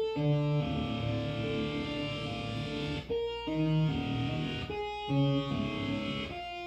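Distorted sawtooth synth patch from Arturia Pigments, run through an AmpliTube guitar-amp model, played as held chords on a keyboard so it sounds like overdriven electric guitar. The filter resonance comes in on a slow envelope for a howling, feedback-like edge. Chords change every couple of seconds with brief gaps between them.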